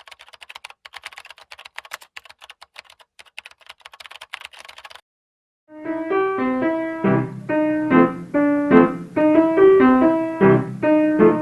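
Rapid, quiet clicking like typing on a computer keyboard for about five seconds. After a short pause, a louder piano-like keyboard melody of struck notes begins.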